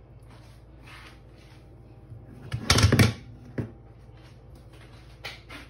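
Brief clatter of kitchen things being handled: a few quick knocks with a low thump a little under three seconds in, then a single click about a second later.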